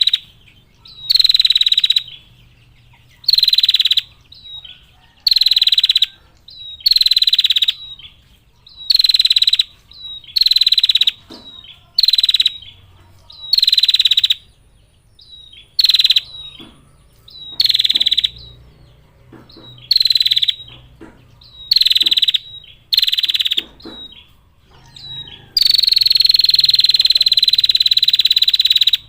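Female prinia (prenjak) giving its rattling 'ngetir' call, a female's call to males: a run of short buzzy rattles about once a second, then one long unbroken rattle from about 25 seconds in.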